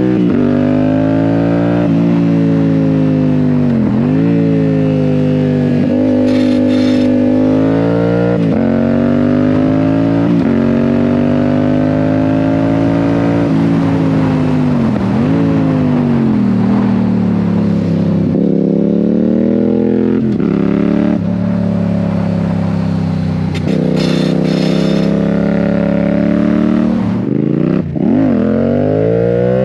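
Yamaha MT-07's parallel-twin engine through an aftermarket IXIL exhaust, heard while riding: it revs up through the gears, with a short dip in pitch at each gearchange, eases off and pulls away again several times. Wind rushes over the microphone.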